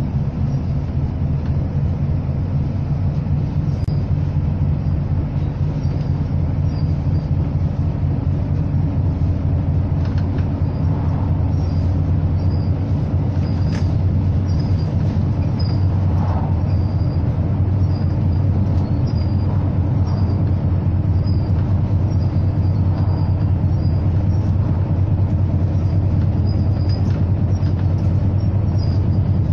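Bus engine running steadily: an even, low drone that grows a little louder over the stretch, with faint high chirps recurring throughout.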